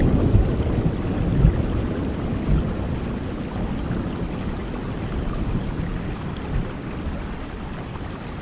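Steady rainfall with the low rumble of a thunderclap dying away in the first couple of seconds.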